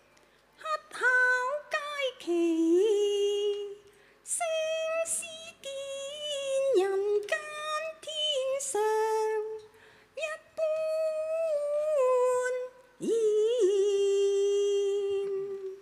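A woman singing Cantonese opera in long held, sliding notes, phrase after phrase with short breaths between, and no instruments to be heard.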